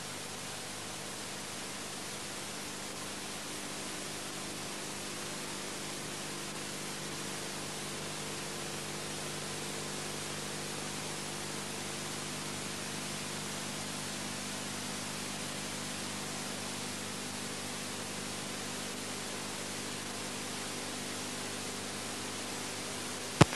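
Steady hiss with a faint low hum from the silent stretch of an old film soundtrack, with one sharp click near the end.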